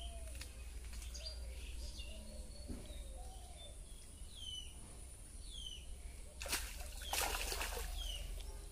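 Birds calling, one repeating a short falling chirp about once a second. From about six and a half seconds in, water splashes and streams off a cast net as it is hauled up out of a pond.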